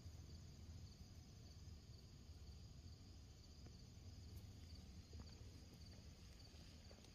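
Faint, steady high-pitched trilling of an insect chorus, with a low rumble underneath and a few faint clicks.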